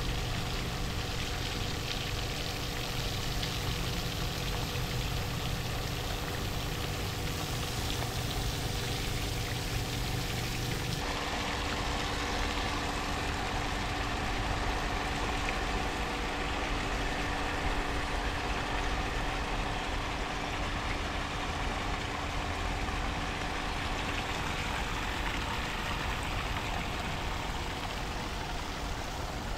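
Centrifugal water pump running with a steady hum. About eleven seconds in its sound shifts: the deepest hum drops away and a higher hiss grows.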